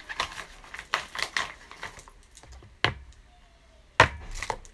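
Quick clicks and taps of small plastic skincare containers being handled, with two sharper knocks near three and four seconds in.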